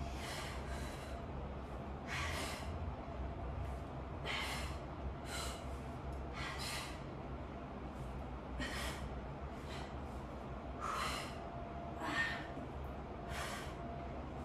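Women's heavy breathing while exercising: short, forceful breaths, about a dozen of them, coming every one to two seconds.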